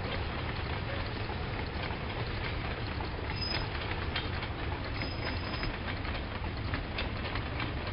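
Distant ballast train of loaded wagons rolling along the track: a steady low rumble with irregular clicking of wheels over the rails, and two brief, faint high squeals near the middle.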